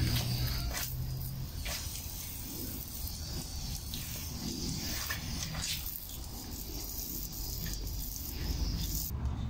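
Water from a garden hose running over a dog's wet coat and splashing onto paving tiles, a steady hiss with a few brief splashes, while the dog pants.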